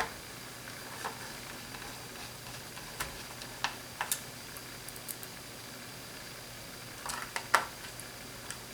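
Scattered light clicks and taps from a small Phillips screwdriver working the keyboard screws into a laptop's plastic bottom case, with a quick cluster of clicks about seven seconds in.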